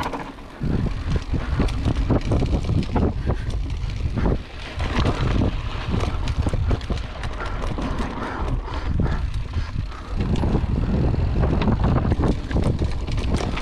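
Mountain bike ridden over a rough, technical dirt trail: a continuous run of rattles and knocks from the bike over the rough ground, with heavy wind buffeting the microphone.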